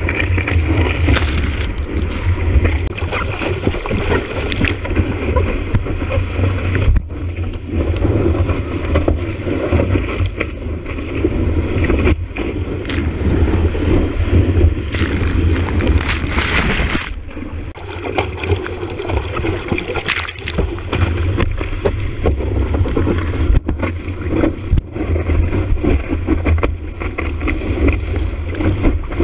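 Surfboard riding a breaking wave: whitewater rushing and splashing against a board-mounted action camera, with heavy wind buffeting on its microphone and sharper splashes now and then.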